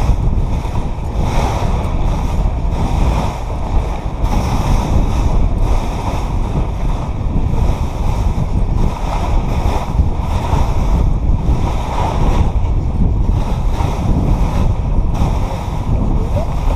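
Wooden dog sled moving fast over glacier snow: a steady hiss from the runners, with wind buffeting the microphone.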